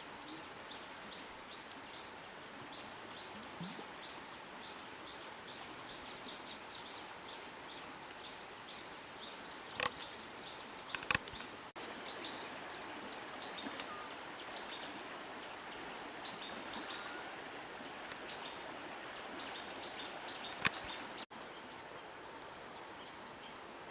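Birds chirping over a steady high insect drone, with a few sharp twig snaps around the middle and once near the end as stems are broken off by hand.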